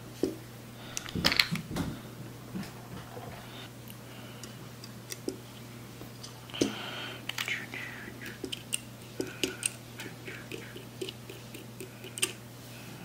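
Small clicks and taps of folding-knife parts and a plastic dropper bottle being handled and set down on a silicone work mat while the pivot is lubricated, with a louder clatter about a second in and another around six and a half seconds. A low steady hum runs underneath.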